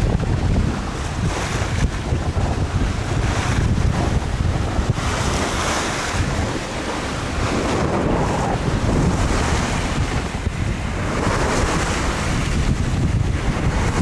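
Wind buffeting the microphone over the wash of waves along a sailboat under sail in a 10–12 knot breeze, with the water surging louder about five seconds in and again near eleven seconds.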